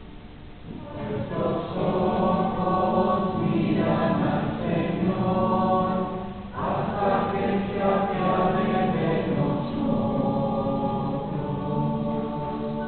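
A group of voices sings the responsorial psalm refrain together in two phrases, with a brief breath between them about six and a half seconds in.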